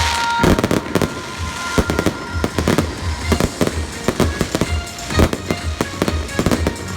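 Fireworks going off in quick succession, a dense run of bangs and crackles, over music with a steady bass beat.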